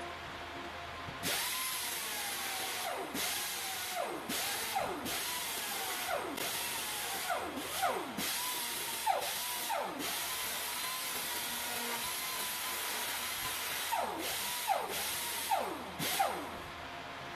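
Pneumatic air grinder whining at high speed. Its pitch sweeps down sharply again and again as it bites into the welded steel seam of a replacement cab panel, with short breaks when the trigger is let off. It starts about a second in.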